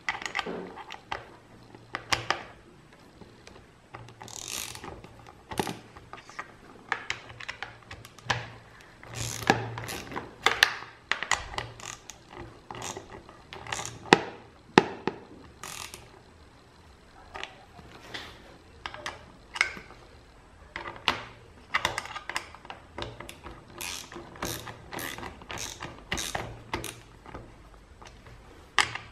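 Torque wrench ratcheting in short, irregular runs of clicks as hex bolts on metal end-cap clamps are done up to a low torque of 5 newton metres. A few louder, sharper clicks stand out about halfway through.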